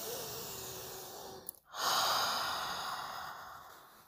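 A woman breathing deeply close to the microphone: two long breaths, the second louder and fading away toward the end.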